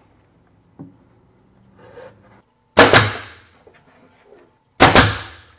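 Pneumatic nail gun firing twice, about two seconds apart, nailing a face-frame rail onto a plywood cabinet; each shot is a sharp crack followed by a short hiss of exhaust air.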